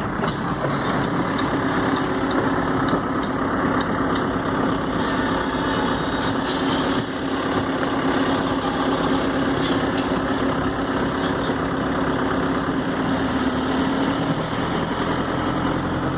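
A vehicle engine running with a steady hum over a dense, even hiss. The hum cuts out about fourteen seconds in.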